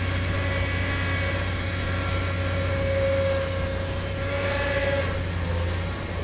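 Hitachi ZX470LCH excavator running: a steady diesel engine drone with a whining hydraulic tone that swells and shifts as the boom and bucket are moved.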